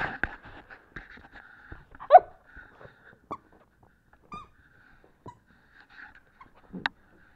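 A dog making short, scattered breathy noises, with one loud squeal that falls in pitch about two seconds in and a sharper, shorter sound near the end.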